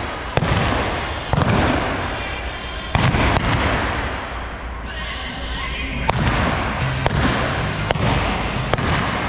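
Gunshots from .45-calibre black-powder blanks fired from horseback during a mounted shooting run: about eight sharp shots, roughly a second apart with a pause in the middle. Each one echoes in the indoor arena.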